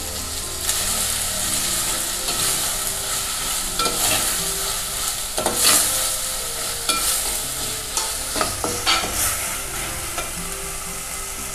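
Bitter gourd leaves and masala sizzling in oil in a clay pot, stirred with a metal spoon that scrapes the pot and gives several short knocks against its side.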